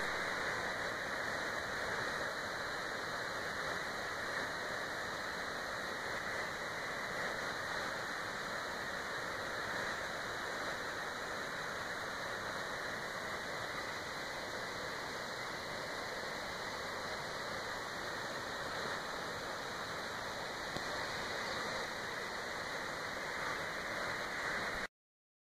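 Steady rushing of a waterfall, cutting off abruptly near the end.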